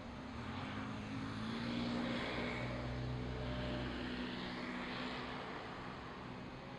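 A passing engine drone with a steady low hum, swelling to its loudest about two seconds in and fading away over the next few seconds, picked up on binaural earbud microphones.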